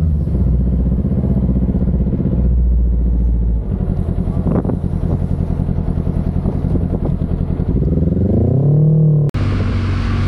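Sport motorcycle engine running at low revs, with one rev rising and falling near the end. It then cuts abruptly to another motorcycle riding, with wind on the microphone.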